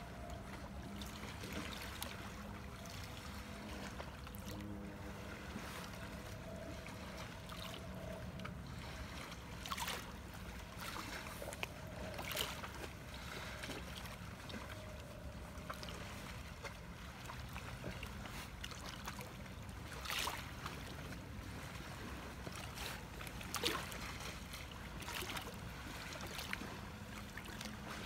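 Small waves lapping steadily at a lakeshore, with a handful of brief louder splashes. A faint low hum runs under it for the first several seconds.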